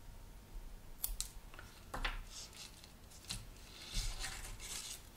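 Small metal line clippers snipping the tag end of fishing line off a freshly tightened Rapala loop knot: a few sharp snips and clicks. Near the end, light rustling and clicking as the hard plastic plug and its treble hook are handled.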